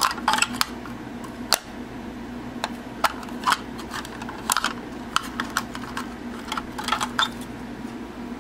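Irregular sharp plastic clicks and rattles as a transformed toy cube is pressed into its clear plastic case, handled inside it and pulled back out.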